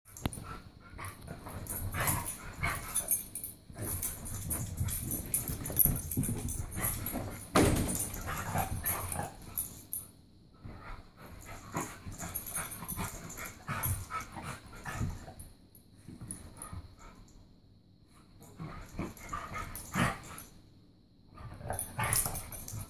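Two beagles play-fighting: dog vocalisations and scuffling in irregular bursts, busiest in the first half with a loud burst about eight seconds in, then sparser.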